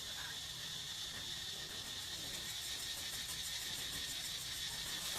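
A steady high-pitched insect chorus, which turns to a fast, even pulsing about two seconds in, over a low rumble.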